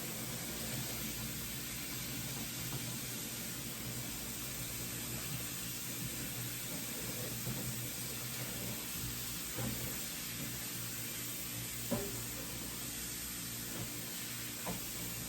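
A steady, even hiss with a faint click about twelve seconds in.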